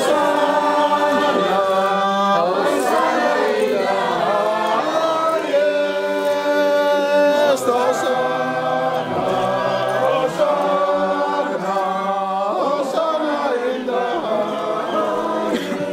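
A crowd of voices singing a hymn unaccompanied, with long held notes that change every second or so.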